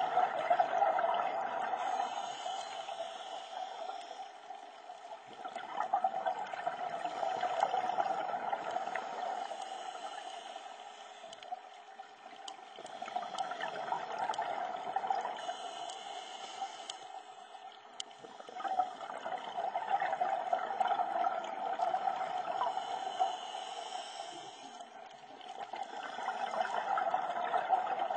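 Underwater scuba breathing through a regulator: bursts of exhaled bubbles gurgling and crackling, swelling and fading about every six to seven seconds.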